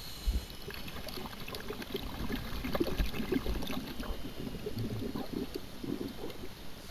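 Muffled underwater noise picked up by a camera in its dive housing: irregular crackling and gurgling with a few low thumps.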